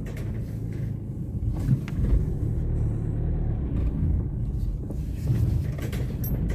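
Car running with a steady low rumble, heard from inside the cabin, with a few brief knocks.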